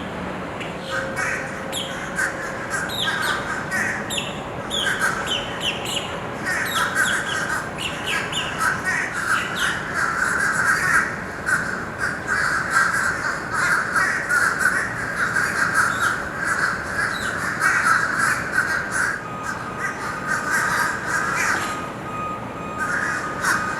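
A flock of birds calling over and over in short, repeated calls that build into dense, overlapping chatter from about a quarter of the way in.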